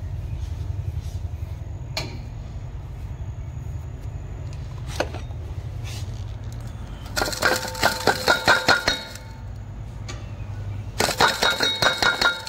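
Steel kitchen utensils clinking against each other in two quick bursts of rapid strikes, about six a second, each ringing like metal. The first burst comes about seven seconds in and the second near the end, over a steady low rumble.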